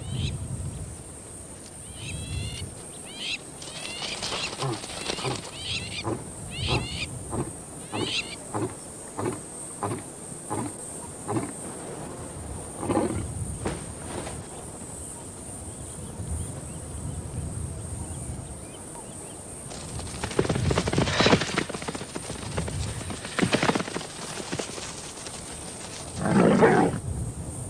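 Lions growling in a string of short rough bursts, the strongest near the end, with quick bird chirps early on.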